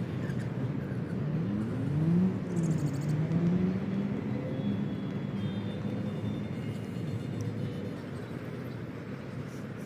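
A motor vehicle engine passing, over a steady low rumble. Its pitch rises, drops about two seconds in, then rises again, levels off and fades.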